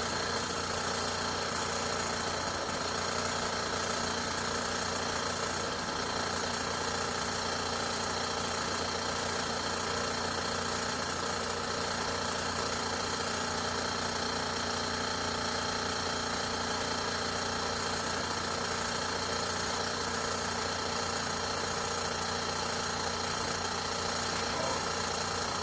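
Compressor wine fridge running: a steady, unbroken mechanical hum made of several steady tones.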